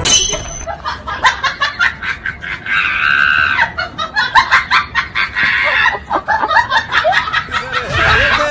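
Hearty laughter in quick repeated bursts, with a long, high-pitched shriek of laughter about three seconds in.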